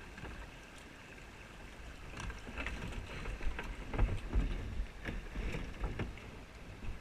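Kayak paddles dipping and splashing in river water, a string of irregular splashes in the second half over a low rumble.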